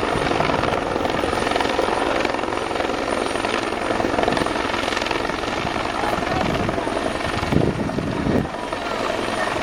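Bell 412 helicopter running close by: its turbines and rotor make a steady, loud noise with a fast rhythmic beat from the blades. A short, louder burst at the low end comes about three-quarters of the way through.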